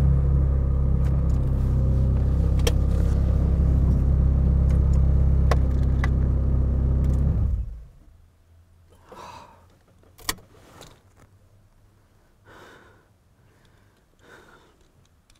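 Ferrari 430 Scuderia's V8 with a Capristo straight-pipe exhaust idling steadily, heard from inside the cabin, then switched off about seven and a half seconds in. Afterwards there are only faint rustles and a few small clicks, one of them sharp about ten seconds in.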